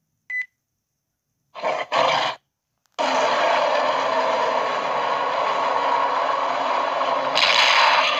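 Giant-ape roar sound effect for Kong: a short grunt about a second and a half in, then one long roar from about three seconds in that grows louder near the end. A brief high blip sounds just before.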